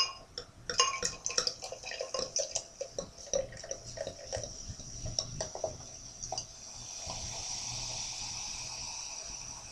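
Carbonated cider poured from a bottle into a glass, glugging and splashing irregularly. For the last few seconds the foaming head fizzes with a steady hiss.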